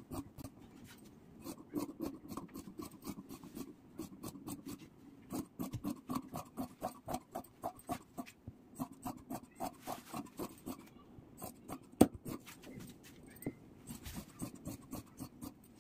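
Large tailoring scissors snipping through velvet suit fabric, a run of sharp blade clicks several times a second, with one louder clack about twelve seconds in.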